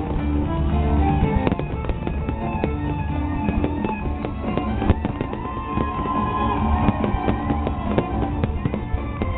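Fireworks going off in a rapid, continuous series of bangs and crackles, heard over music with held notes.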